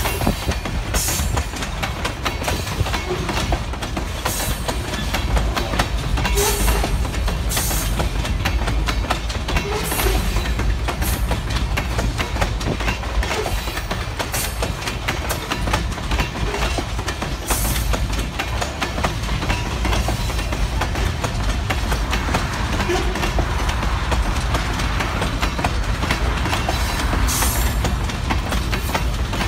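Freight train of rock hopper cars rolling steadily past close by: a continuous low rumble with wheels clattering over the rail joints, and now and then a brief high-pitched flare.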